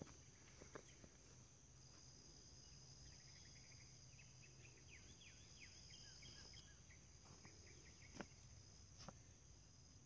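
Near silence with a faint, steady high-pitched trilling of insects, joined in the middle by a run of quick short chirps and by two faint clicks near the end.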